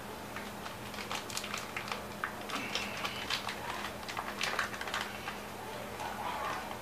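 Small mounting hardware and its packet handled by hand: irregular light clicks and brief rustles, like loose keyboard typing.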